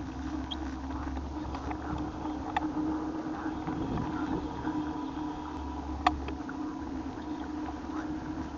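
Riding noise from a bicycle on the move: a steady low rumble and hum of tyres and wind, with two sharp clicks or rattles, one a few seconds in and one past the middle.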